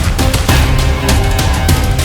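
Loud, driving background music with heavy rapid percussion over held notes.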